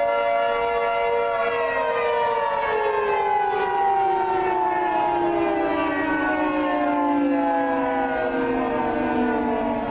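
Outdoor tornado warning siren sounding in a test, a loud chord of several tones. About a second and a half in, the pitch starts to fall slowly and keeps sliding down as the siren winds down.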